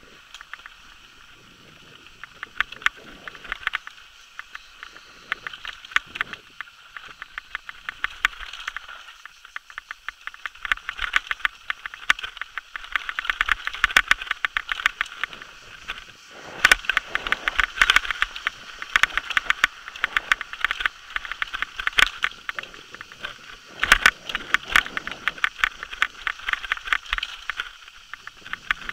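Downhill mountain bike clattering and rattling over a rocky dirt trail: a rapid, irregular run of knocks and clicks from the bike jolting over stones and roots. It is sparse for the first few seconds, then becomes a near-continuous clatter with a few heavier bangs.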